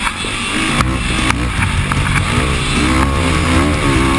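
Dirt bike engine revving, its pitch rising and falling again and again as the throttle is opened and closed, with a couple of sharp knocks about a second in.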